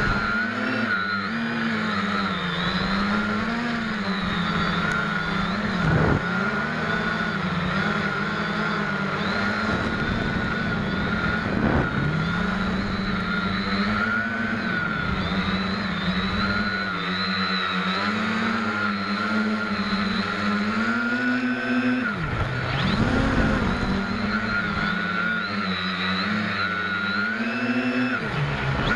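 SK450KK2 quadcopter's four brushless motors and propellers buzzing in flight, heard from a camera mounted on the quad. The whine wavers up and down with the throttle, and a few times it drops sharply and climbs back again.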